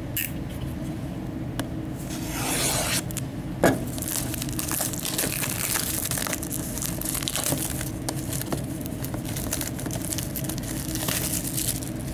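Plastic shrink-wrap being torn and crinkled off a sealed trading-card box, with many small crackles and one sharp snap a few seconds in.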